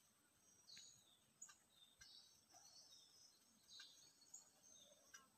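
Near silence, with faint scattered bird chirps and a few soft clicks.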